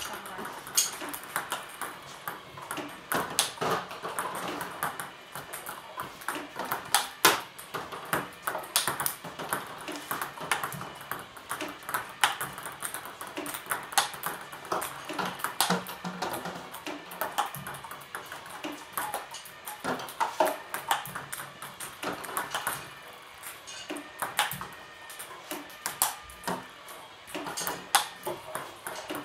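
Table tennis ball clicking off paddles and the table in a rally, many sharp taps at an irregular pace, with music underneath.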